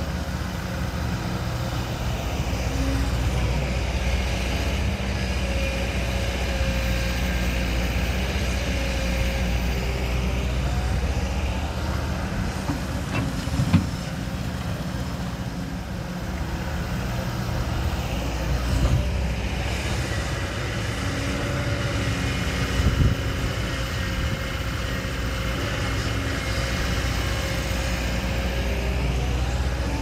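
Heavy diesel engine of earthmoving machinery working under load, swelling and easing in two long cycles. A sharp clank comes about halfway through and another knock later on.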